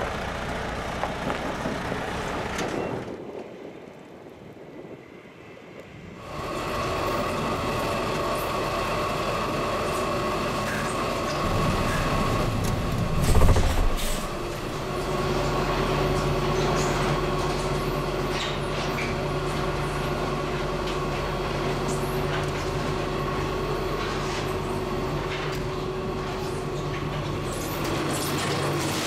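Liebherr ETM 1004 T electric truck mixer machinery running: a steady mechanical hum with steady tones. It drops quieter a few seconds in, swells into a brief loud low rumble about halfway, then settles into a steady hum with low tones.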